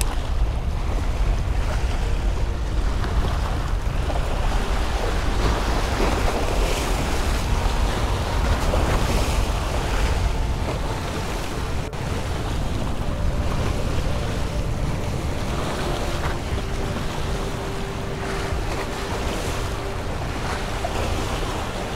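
Small waves washing and breaking against granite jetty boulders, surging now and then, with wind buffeting the microphone as a steady low rumble.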